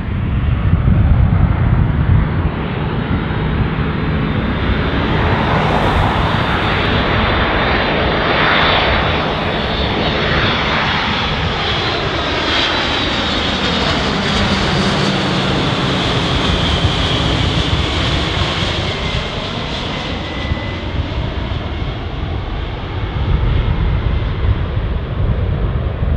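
Boeing C-17A Globemaster III's four Pratt & Whitney F117 turbofan engines on landing approach, passing low overhead: a steady jet rush with a high whine, its tones sweeping in pitch as the aircraft goes over and then draws away.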